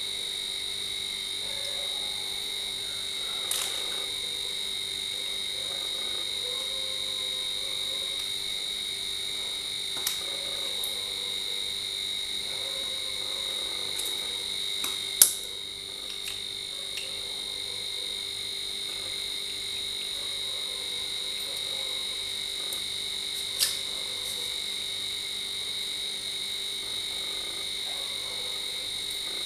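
A few sharp clicks and knocks from a condenser microphone and its shock mount being handled, the loudest about halfway through. Under them runs a steady high-pitched background drone.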